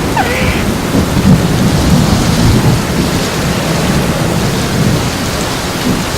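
Thunderstorm: steady heavy rain with low rumbling thunder.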